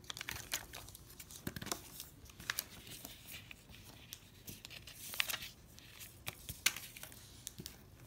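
Plastic gem stickers being peeled off their backing sheet and pressed onto cardboard: scattered small clicks and taps with crinkly peeling rustles, a longer rustle about five seconds in.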